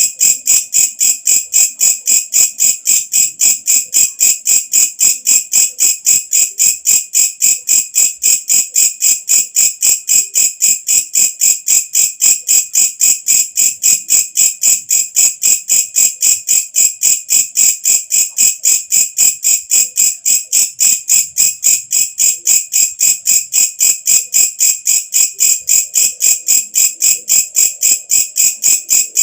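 Walang kecek, a singing katydid, calling with a shrill, steady train of short, evenly spaced pulses, about three to four a second, without a break.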